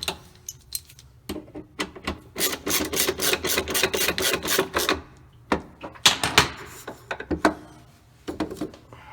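Socket ratchet clicking while a nut is tightened down on a washer's drive pulley: a fast run of clicks from about two to five seconds in, then scattered single clicks and knocks.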